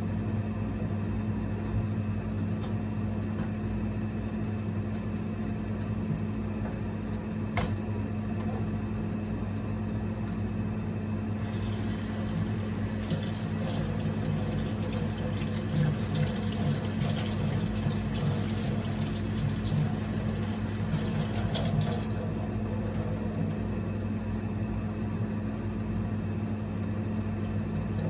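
A steady low electrical hum throughout. From about eleven seconds in until about twenty-two seconds, water running or splashing sounds over it.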